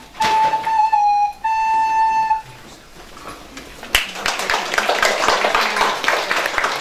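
A recorder plays the last few notes of a simple tune, ending on a held note about two seconds in. About a second and a half later the audience starts applauding.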